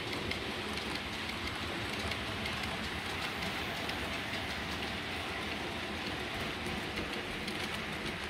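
Model freight train, an electric locomotive hauling a string of wagons, rolling past on model track: a steady rolling hiss of small metal wheels on the rails with faint ticks at the rail joints.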